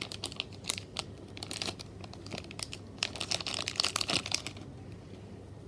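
Thin clear plastic bag crinkling and crackling as it is handled and pulled open by hand. It grows busiest about three seconds in and stops shortly before the end.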